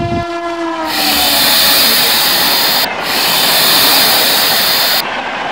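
A train horn fading out with a slightly falling pitch, then a loud steady hiss that starts abruptly, breaks off briefly a little past halfway and cuts off sharply near the end.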